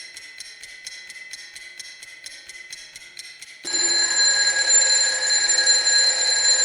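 Electronic broadcast jingle: quick, even ticking at about four to five a second over a steady high tone. About halfway through, a loud, bright held chord of several tones comes in and runs for about three seconds before cutting off.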